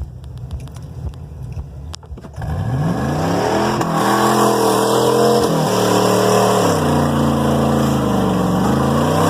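1999 Ford F-150 engine running low, then revving up hard about two and a half seconds in and held at high revs with a dip and a second rise, easing off near the end. A loud rushing of water comes in with the revving as the truck charges through a flooded mud hole.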